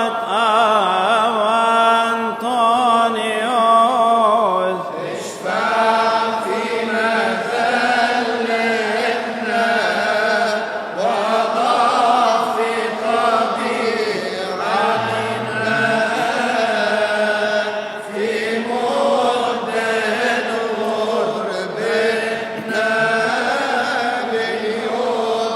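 A solo male voice chanting a Coptic Arabic madih (praise hymn) in long melismatic held notes with wavering pitch, over a steady sustained drone.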